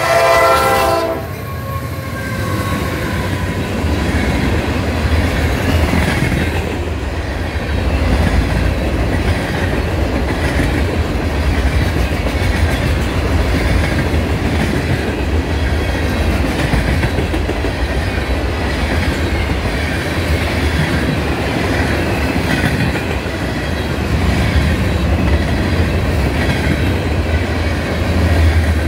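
CSX SD70MAC freight locomotive's horn sounding and cutting off about a second in. Its EMD 710 two-stroke diesel and a trailing unit's diesel then run past, followed by a long string of gondolas and covered hoppers rolling by with a steady low rumble and rhythmic wheel clatter.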